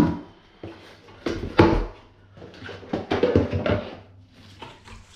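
Plastic containers being handled in a stainless-steel sink: a string of short, irregular knocks and clatters, the loudest about one and a half seconds in.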